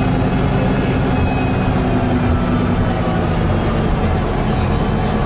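Cummins L10 diesel engine of a Leyland Olympian double-decker bus running as the bus travels, driving through its Voith DIWA automatic gearbox, heard from inside the lower saloon as a steady low drone.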